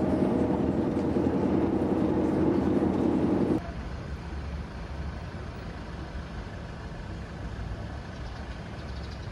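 Bus cabin drone: a steady engine and road hum. It cuts off abruptly about three and a half seconds in, giving way to a quieter, steady low street rumble of traffic.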